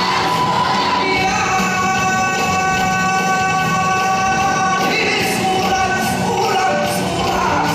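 Music with singing, the voice holding long notes over a steady beat.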